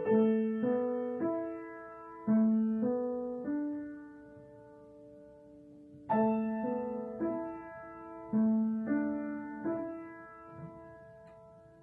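Piano playing a slow melody: two phrases of single struck notes, about two a second, each phrase ending on a held note that fades away.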